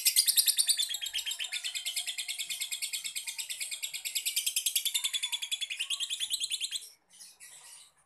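Young Fischer's lovebird giving a long ngekek, its fast chattering trill: an unbroken run of sharp high-pitched pulses, about ten a second, that stops abruptly about seven seconds in and is followed by a few short chirps.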